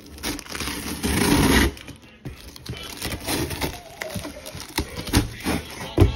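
Clear packing tape ripped off the seam of a cardboard shipping box: a loud tearing rip near one second in, lasting well under a second. Then scattered scrapes and knocks of the cardboard being handled, with a sharp knock near the end.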